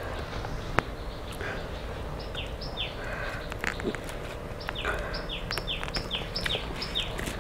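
A bird calling over and over in a rapid series of short, downward-sliding notes, beginning about two seconds in. A single sharp click comes under a second in.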